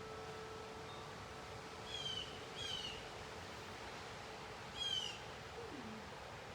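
A bird calls three times with short, downward-slurred chirps, over a steady wind hiss. A held low ringing tone fades out in the first second or two, and a low falling note sounds near the end.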